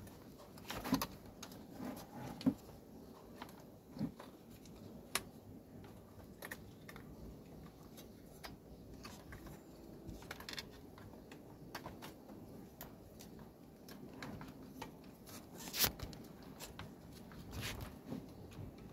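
Scattered clicks and light knocks of the plastic lid and control-panel housing of a Panasonic SR-SY106R IH rice cooker being handled and fitted together. The sharpest click, about sixteen seconds in, is the loudest.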